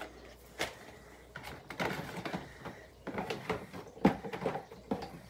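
Rummaging through a box of packaged cosmetics: a run of small clicks, knocks and rustles of packaging being handled, with a sharper knock about four seconds in.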